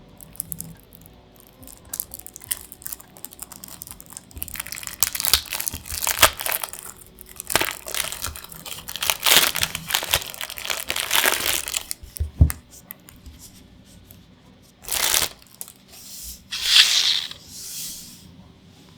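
Magic: The Gathering commander deck packaging being torn open and crinkled: spurts of rustling, a soft thump about twelve seconds in, then two short tearing swipes near the end.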